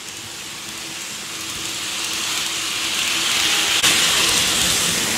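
N gauge model trains running on the track: a steady rolling hiss of wheels on rail that grows louder as a train comes close. A faint steady hum lies beneath it, and there is a single click a little before four seconds in.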